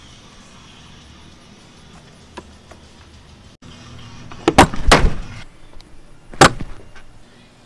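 Stainless steel latch on an Overland Vehicle Systems Mamba 3 hard-shell rooftop tent being worked open by hand. A quick cluster of sharp metallic clacks comes about halfway in, then one more sharp snap about a second and a half later.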